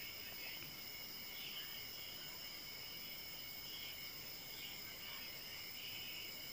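Faint, steady, high-pitched background drone of several held tones, with no other event.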